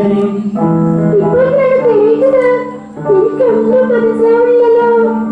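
A female voice singing a song in long, wavering held notes over held instrumental chords, with a brief break about three seconds in.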